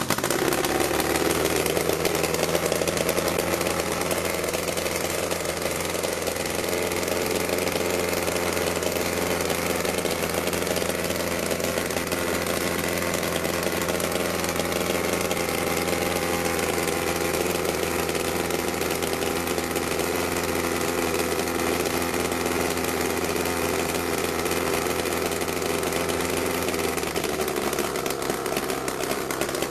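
Homebuilt single-seat helicopter's small piston engine catching at the very start and then running steadily at a constant speed as the rotor turns slowly; its note shifts slightly near the end.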